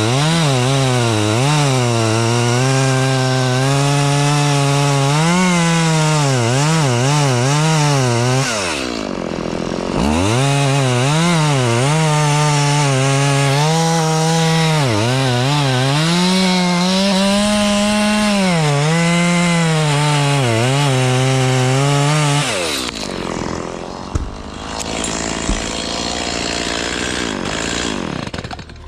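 Two-stroke chainsaw cutting wood, its engine pitch wavering up and down under load. About nine seconds in it drops off briefly and revs back up. Just past twenty-two seconds it cuts off, leaving quieter noise and a couple of sharp clicks.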